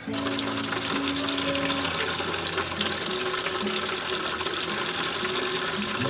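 Liquid whey and goat's milk running from a plastic tank's spigot into a plastic bucket: a steady pouring stream that starts suddenly. Background music plays underneath.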